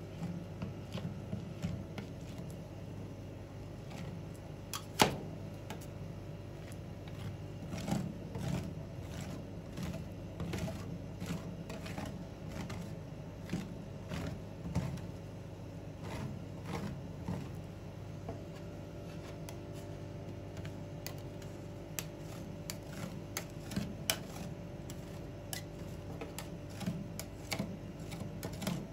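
Metal spatulas tapping and scraping on the steel cold plate of a rolled-ice-cream machine while the frozen base is spread thin, with a sharp clack about five seconds in. A steady low hum runs underneath.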